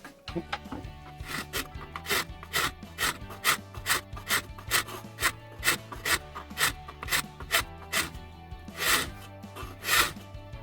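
Round file rasping a cable slot into a cordless vacuum's charging holder, in short, even strokes about two a second, a little louder near the end.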